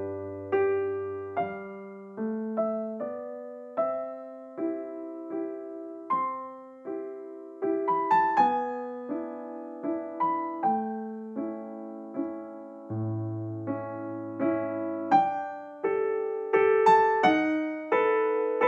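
Background piano music: a slow melody of single struck notes, each fading away, over a few low held bass notes.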